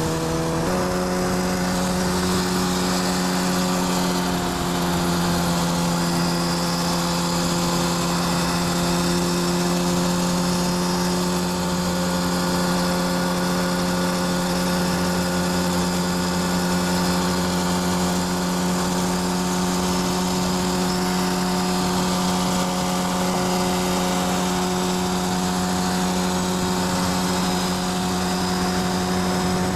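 Vehicle engine droning at a steady freeway cruise over road and wind noise. Its pitch steps up slightly about a second in and then holds.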